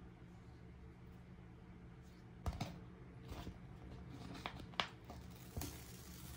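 Small plastic toy kitchen pieces being handled, giving a scattered run of light clicks and taps, the sharpest about two and a half seconds in and just before five seconds, over a faint steady hum.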